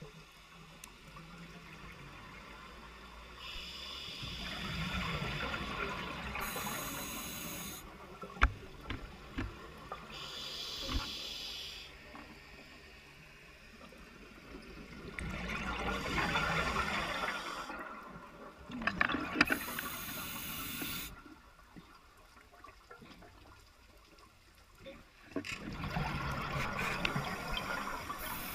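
Scuba diver breathing through a regulator underwater: hissing inhalations and bubbling exhalations in surges every few seconds. A few sharp clicks come around the middle.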